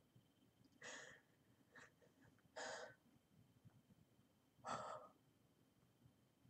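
A woman's audible breathing: three short, breathy exhalations or inhalations about two seconds apart, over quiet room tone.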